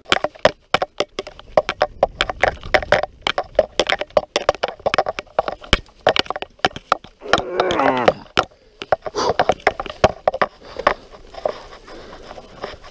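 Mountain bike rattling and jolting over a rough dirt trail, a rapid irregular run of sharp knocks and clatters from the bumps. About seven to eight seconds in, a brief wavering cry rises above it.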